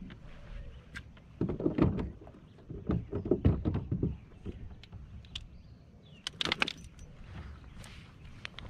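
Clusters of bumps and knocks against a plastic fishing kayak as a hooked peacock bass is brought alongside and landed, followed later by a short clicking rattle of handled gear.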